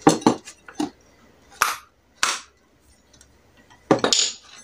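Sharp, irregular knocks of a hammer tapping the metal housing of a small single-phase exhaust fan motor to free its end section. There is a longer rattling clatter about four seconds in.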